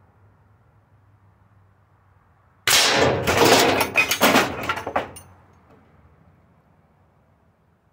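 Single shot from an AEA Terminator .357 big-bore PCP air rifle, a sharp report about two and a half seconds in. A few knocks and clanks follow over the next two seconds as the hit can of corn is knocked off the ledge.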